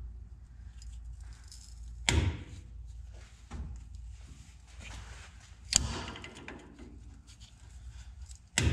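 Hand tool working the tie rod adjusting sleeve on a 1989 Toyota pickup's front end, turning it to shorten the tie rod and correct toe-out: three sharp knocks about three seconds apart, with small clicks and rattles between.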